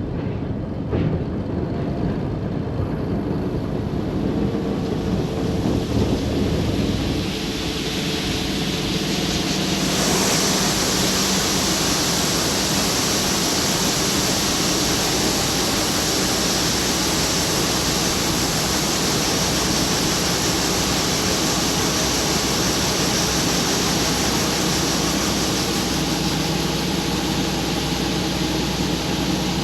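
John Deere combine harvester running steadily in the corn field, a deep engine drone under a broad hiss of machinery. About ten seconds in, the hiss gets louder and stays up.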